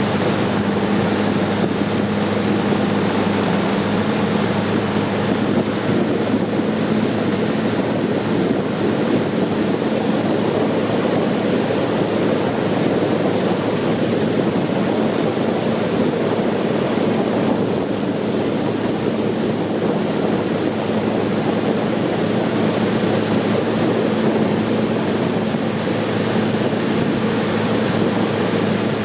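Long-tail boat's engine running at a steady speed under way, with a steady hum over the rush of water and wind.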